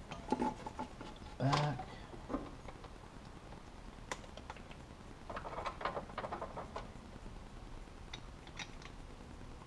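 Light clicks and taps of parts being handled by hand during a thermostat swap on a 5.7 Hemi engine, with a quick run of small clicks a little past the middle.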